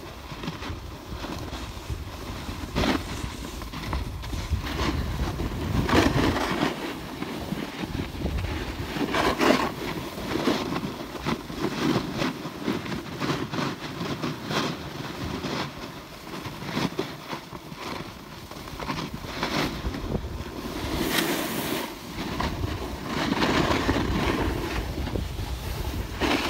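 Wind rumbling on a phone microphone while moving down a ski slope, with the hiss and scrape of edges sliding over packed snow swelling and fading irregularly.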